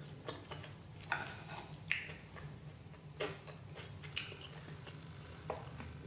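Eating sounds: about half a dozen light clicks and taps, roughly one a second, as chopsticks and a wooden spoon touch a ceramic plate while scooping rice. A low steady hum runs underneath.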